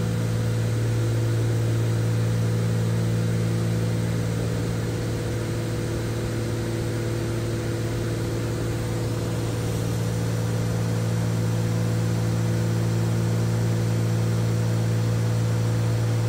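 Twin-engine Cessna 310Q in flight, heard inside the cabin: a steady, even drone of its propellers and piston engines over a wash of air noise.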